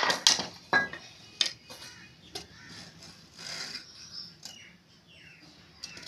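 Loose fired clay bricks and flat pieces clinking and knocking against each other as they are handled and set down on brick paving: several sharp clinks in the first second and a half, then quieter taps and scraping.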